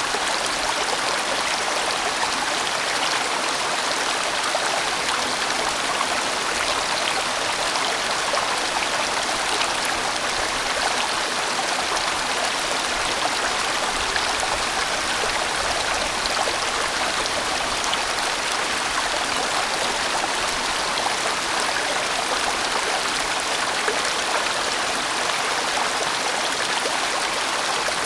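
A large mountain stream rushing steadily over rocks, its water noise even and unbroken.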